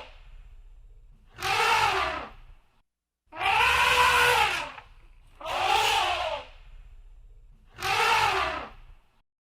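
Elephant trumpeting: four separate blasts, each about a second long, rising then falling in pitch. A faint low hum lies under the gaps between them.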